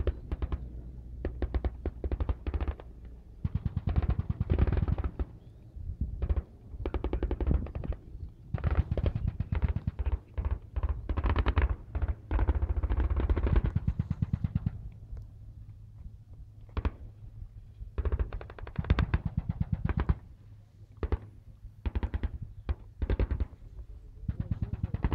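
Automatic gunfire: rapid strings of shots in bursts lasting from one to a few seconds, repeated with short pauses between them.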